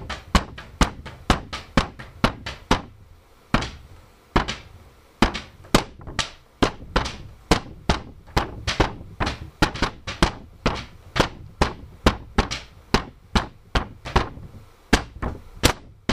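Percussion beat played on paper: a steady run of sharp thuds and taps, a few to the second, thinning out for a moment about three seconds in.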